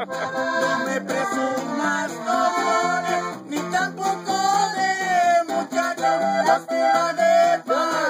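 A woman singing to a twelve-string guitar's strummed accompaniment of alternating bass notes and chords, holding one long wavering note about halfway through.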